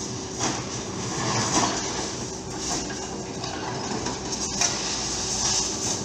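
Excavators running among concrete rubble: a steady diesel engine drone with irregular clanks and scrapes of steel and broken concrete, swelling louder about once a second.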